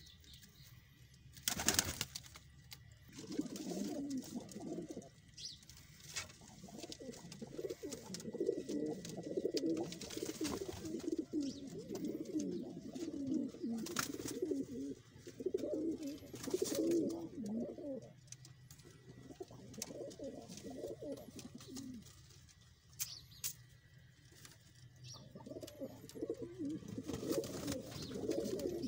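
A flock of domestic fancy pigeons cooing together, many low warbling calls overlapping in waves. A few sharp clicks cut through, the loudest about two seconds in.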